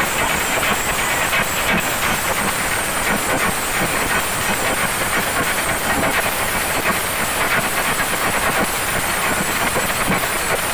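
Large ensemble of chenda drums beaten with sticks, a loud, dense and steady drumming that never pauses.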